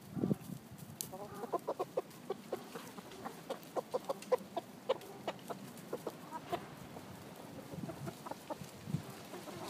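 Chickens clucking close by: a quick run of short, low clucks, thickest through the first half, then thinning out to a few scattered clucks.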